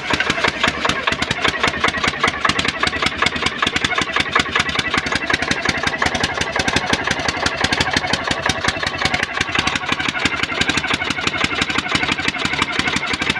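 Common-rail diesel engine running steadily with a rapid, even knocking clatter. This is the fault that returned two days after new piston rings, a new head gasket and an injector nozzle and common-rail service.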